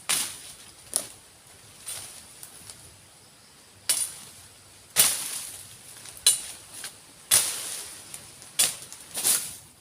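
A run of sharp, irregular knocks, about nine, each with a short rustling tail, and louder from about the middle on.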